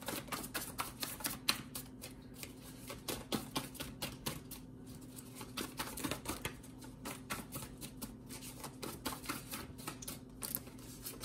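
A tarot deck being shuffled by hand: a dense, irregular run of quick card clicks and snaps.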